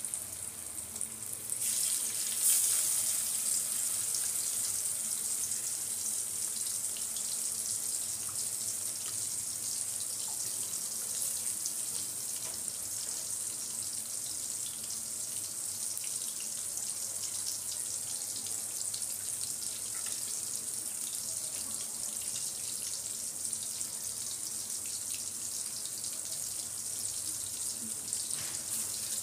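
Indian mackerel (bangda) shallow-frying in hot oil in a steel wok: a steady sizzle with fine crackling, which grows louder about two seconds in.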